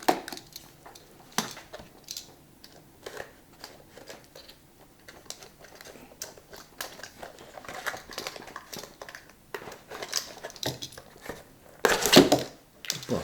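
A shipping box and its packaging being opened by hand: crinkling and tearing with scattered small knocks and scrapes, and a louder burst of rustling near the end.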